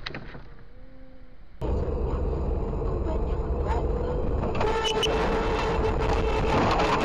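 Car driving, heard from inside the cabin: a steady low rumble of road and engine noise with a constant hum. It comes in suddenly about a second and a half in, after a quieter stretch, and runs on evenly with a few faint clicks.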